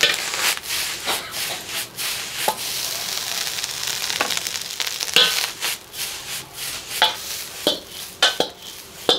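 Fried rice sizzling in a hot seasoned kadai while a metal ladle scrapes and knocks against the pan, a dozen or so sharp clanks at irregular intervals over a steady hiss.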